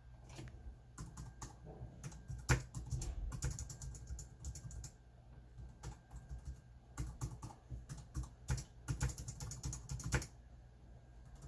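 Computer keyboard typing in two bursts of rapid keystrokes, with a pause of a couple of seconds between them, over a low steady hum.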